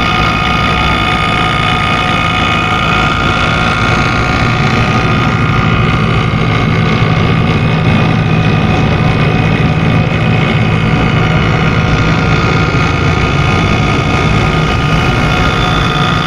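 Refrigeration vacuum pump, oil-sealed, running steadily and loudly. It is pulling a vacuum on an R32 window air conditioner's refrigerant circuit through the low-side line, drawing out the fumes left from brazing.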